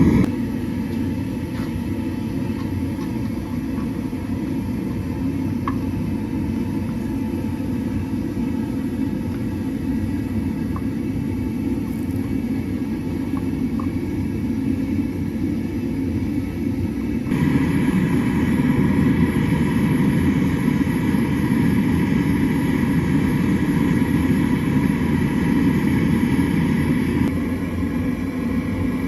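Steady low rumble of a blacksmith's forge running while the steel heats for hardening. It gets louder and brighter about two-thirds of the way through, then eases back near the end.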